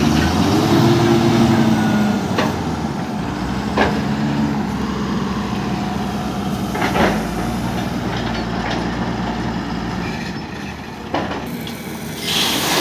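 Tata BS3 tipper truck's diesel engine revving as it pulls away through loose gravel, then running steadily under load, with a few short sharp clicks along the way. Near the end there is a noisy rush, typical of gravel pouring from an excavator bucket into a dump body.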